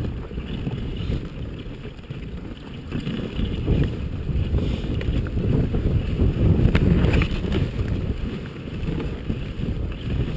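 Dog sled running along a packed snow trail: a steady low rumble of the runners over the snow, with an occasional sharp knock from the sled and wind on the microphone.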